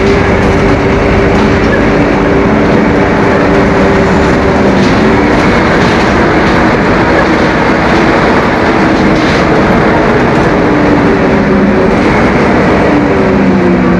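Scania K-270 bus's five-cylinder inline turbodiesel running loud, its engine note dipping and climbing again a few times.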